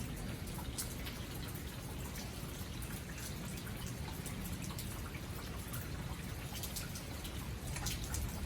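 Rain falling, with scattered drops tapping close by, over a steady low rumble.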